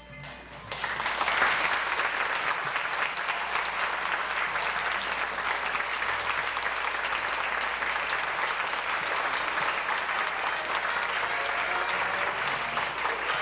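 Theatre audience applauding, breaking in about a second in as the closing music ends and then clapping steadily: the ovation at the close of a stage play.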